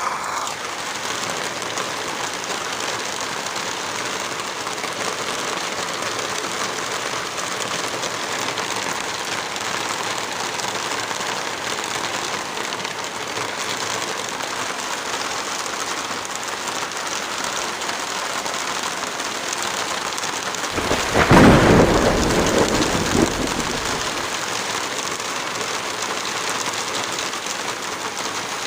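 Steady heavy rain, with a low rumble lasting about three seconds about three-quarters of the way through.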